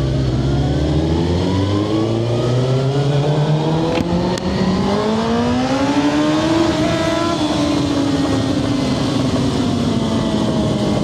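Suzuki motorcycle engine revving up steadily for about six seconds, then easing off as the revs fall.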